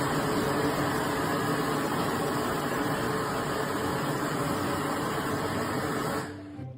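A steady mechanical running noise, like an engine or machine at work, that cuts off suddenly about six seconds in.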